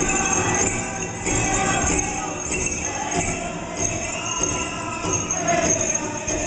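Powwow drum group singing and drumming a chicken dance song, with the dancer's bells jingling in time with his steps.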